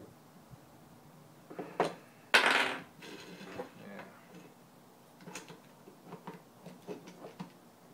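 A small wrench clinking and scraping against a nylock nut on a threaded rod while the nut is tightened on a plastic clamp assembly. A sharp click about two seconds in, a louder scrape just after, then a run of small light clicks near the end.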